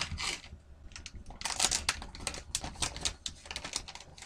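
Metallised anti-static bag crinkling as hands open it and rummage inside, in quick irregular crackles that are thickest about a second and a half in.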